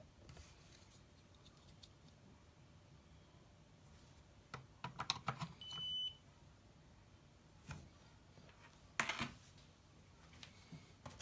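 Scattered handling clicks and knocks of small plastic gear being plugged and moved, with one short, high electronic beep about six seconds in.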